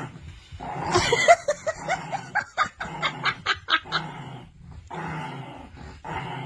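A dog yipping in a quick run of short, high calls, about four a second, followed by softer breathy sounds.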